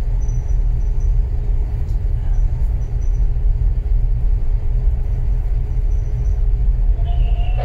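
Container ship's engines and machinery running with a steady low rumble and a faint steady hum while the ship manoeuvres off its berth.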